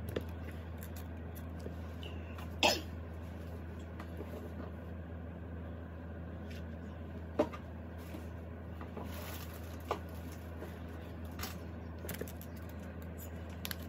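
Photocards being handled and slid into a ring binder's clear plastic sleeve pages: a few light taps and clicks, the sharpest about two and a half seconds in, over a steady low hum.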